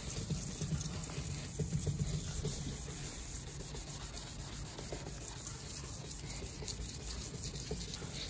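1200-grit wet sandpaper rubbed back and forth by hand over a plastic car tail-light lens, a steady rubbing hiss. This is the middle sanding stage of restoring a faded lens, refining the coarser 600-grit scratches.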